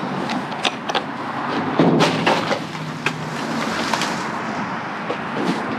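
Scattered knocks, clicks and clatter of objects being handled and moved while rummaging through trash, loudest about two seconds in, over a steady background noise.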